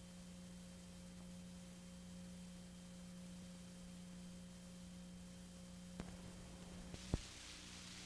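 Faint steady electrical hum with a thin higher tone from the blank start of an old videotape. Two sharp clicks come about six and seven seconds in, the second louder, and then tape hiss rises as the recording begins.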